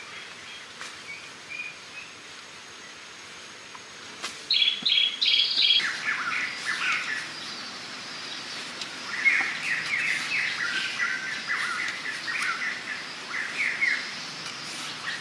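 Birds chirping in quick runs of short, high notes, loudest about four to six seconds in and again through the second half, with a couple of faint clicks.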